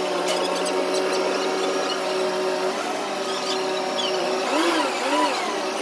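Steady mechanical whine with squeaking from the mobile crane hoisting a steel truss. Near the end, a few short squeals rise and fall in pitch.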